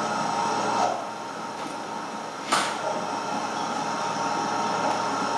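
Steady room hum and hiss, with one sharp click about two and a half seconds in.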